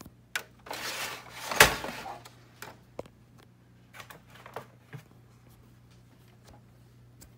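General Electric VG-7910 VHS recorder with its cover off, trying to play a tape: a steady low hum with scattered mechanical clicks and clunks. A loud rushing noise with a sharp knock comes about a second and a half in.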